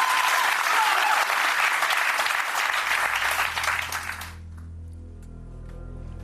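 Studio audience applauding and cheering, cut off abruptly about four seconds in, leaving a low steady background music drone.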